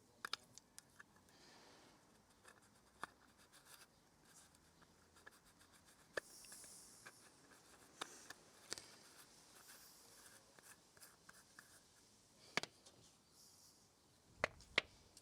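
Faint hand-handling noises from a hose fitting and its plastic clips being worked: scattered small clicks and taps with a soft rubbing about six seconds in, and a few sharper knocks near the end.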